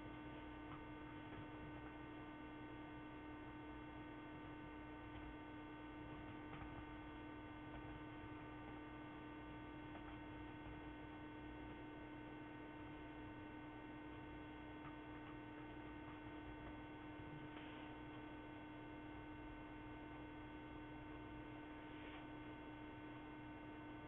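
Faint steady electrical hum: one low tone with fainter higher tones above it, over a low hiss.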